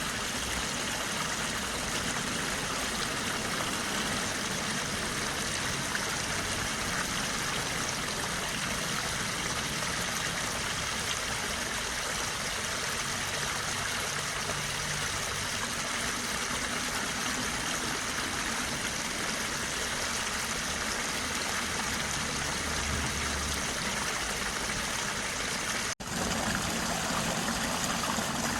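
Stream water running steadily, a continuous rushing hiss. It cuts out for an instant near the end and comes back slightly louder.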